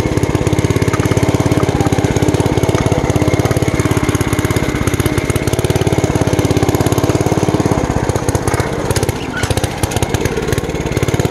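Wisconsin AKS single-cylinder air-cooled engine of a 1949 Bolens Ridemaster garden tractor running under load as it pulls a disc harrow. Its note sags briefly about eight seconds in. It is not running right, which the owner puts down to a carburetor that needs replacing.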